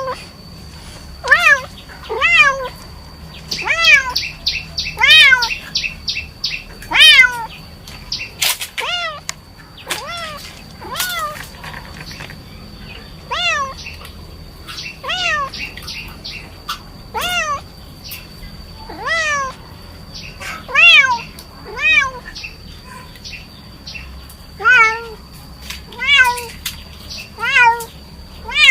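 Young kittens meowing over and over, high thin mews that rise and fall in pitch, about one every second or two. A faint steady high whine runs underneath.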